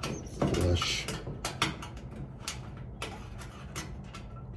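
A few light, separate clicks and taps from small parts being handled at a dryer's cord terminal block.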